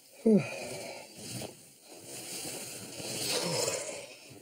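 A man snoring and snorting in his sleep: a loud snort that drops sharply in pitch, then quieter breathy snores with a low falling grunt near the end.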